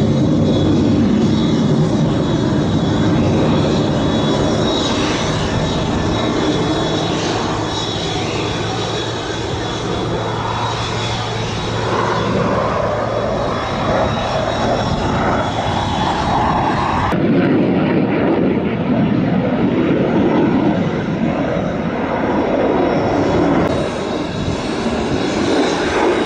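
Jet engines of four F-16 fighters flying in close formation, a loud continuous roar as they pass overhead. About two-thirds of the way through the sound changes abruptly to a similar jet roar with less high-pitched hiss.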